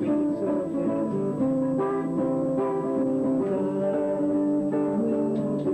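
Guitar music: plucked notes and chords played at an even pace.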